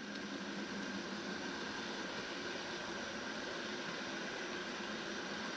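Large stainless-steel pot of water at a boil on the stove, giving a steady hiss with no distinct clinks of the slotted spoon.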